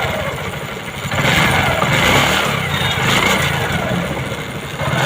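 TVS XL 100 moped's single-cylinder four-stroke engine, with a newly fitted timing chain, running and being revved with the throttle, the engine note rising and falling in pitch.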